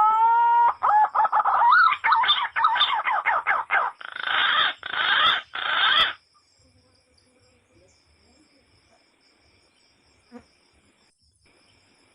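A rooster crowing: one long call that rises and levels off, then breaks into a run of quick choppy notes and rougher ones, stopping about six seconds in. After that there is only a faint, steady, high insect drone.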